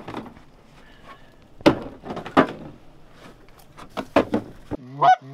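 A few sharp wooden knocks and clatters, then two short goose honks near the end.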